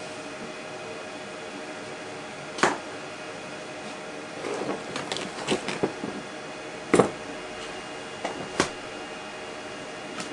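Sand being scooped into a plastic bucket and the bucket handled on a kitchen scale: a few sharp knocks and clatters of scoop and bucket, the loudest about seven seconds in, with a short rustle of sand near the middle, over a steady hum.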